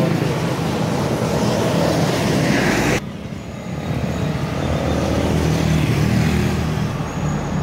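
Coach bus driving past close by on a wet road, its engine and tyre hiss swelling as it passes, then cut off abruptly about three seconds in. After that, motorcycles and cars pass with more traffic noise building up as another bus approaches.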